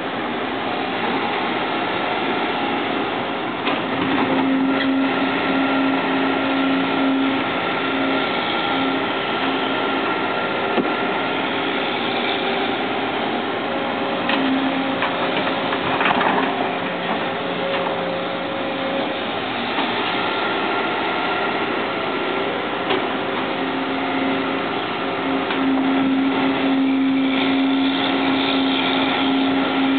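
Sumitomo hydraulic excavator's diesel engine and hydraulics running under work, a steady mechanical drone. A steadier hum rises over it for a few seconds about four seconds in and again for several seconds near the end, with a few light knocks in between.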